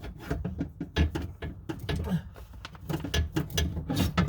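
Irregular knocks, clicks and rattles of parts being handled inside a vehicle door as a window regulator is worked loose.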